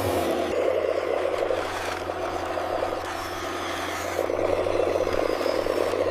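Small electric gear motors of a toy RC excavator buzzing and whirring as it works. The buzz eases off about two seconds in and picks up again about four seconds in.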